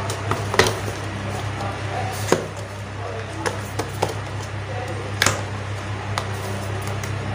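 Small cardboard product box being handled and turned over by hand: a few sharp taps and scrapes of card over a steady low hum of background noise.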